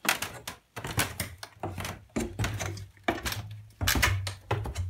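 Footsteps of someone walking while filming: a quick, uneven run of knocks and scuffs, about two to three a second.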